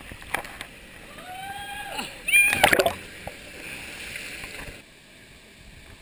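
People yelling and whooping over splashing water, the calls rising and falling in pitch; the loudest yells and splashing come about two and a half seconds in.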